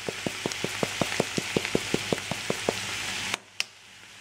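Diced peppers, tomato and onion sizzling in olive oil in a sauté pan, with a quick, even popping about six times a second. The sizzle drops away abruptly about three and a half seconds in, leaving only a few faint pops.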